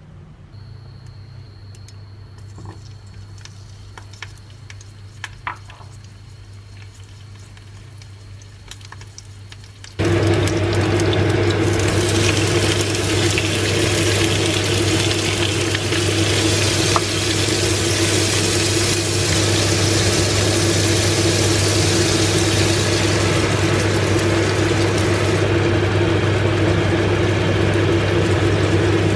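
Peeled prawns and garlic cloves frying in a nonstick pan, a loud, steady sizzle that starts abruptly about a third of the way in. Before it there is only a low hum and a few faint clicks.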